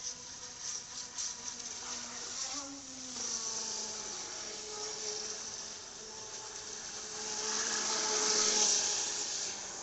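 Homemade RC catamaran speedboat's small motor whining with a buzz as it runs across the water, its pitch shifting up and down with the throttle. It grows louder for a couple of seconds near the end, with a hiss of spray, as the boat passes close.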